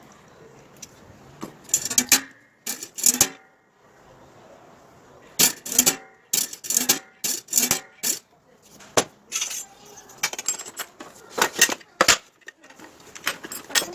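Small metal parts clinking and clattering as they are handled and set down on a hard surface: sharp knocks in quick clusters, some with a short ring.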